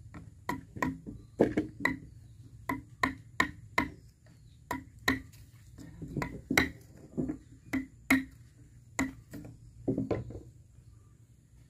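A hand tool striking wood again and again, about two blows a second in uneven groups, each blow with a short ringing note.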